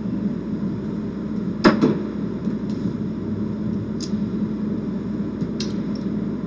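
Steady fan-like hum with a few sharp clicks of casino chips being handled on a craps table: a double click about a second and a half in, a single click near four seconds, and another pair near five and a half seconds.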